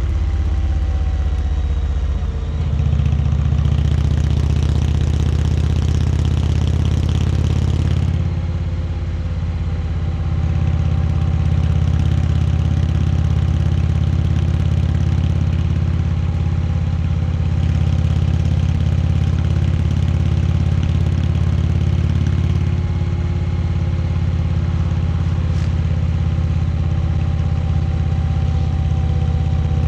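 Indian Chieftain Dark Horse V-twin engine running steadily while riding, heard loud with wind noise; the engine note steps up about two seconds in and shifts again near the eight-second mark.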